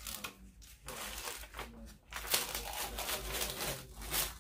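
Protective release sheet being peeled back off a sticky diamond painting canvas: a crinkling, rustling peel that grows louder about halfway through.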